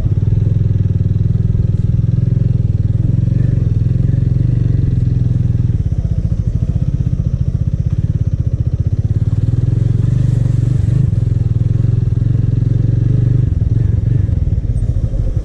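Small motorcycle engine running steadily at low revs, with no revving up.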